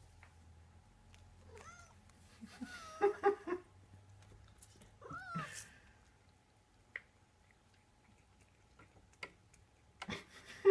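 Domestic cat meowing: a run of short calls about two to three seconds in, one longer meow that rises and falls in pitch about five seconds in, and more calls near the end.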